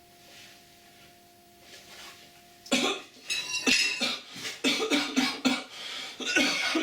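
A man coughing hard and repeatedly in a fit, from breathing the black smoke given off by something burning in a hacked microwave. A faint steady hum stops just as the coughing starts, about three seconds in.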